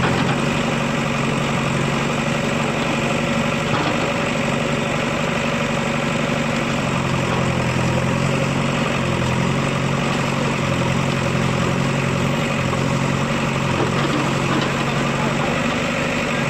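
An engine idling steadily: a constant low hum with a wash of noise above it, unchanging throughout.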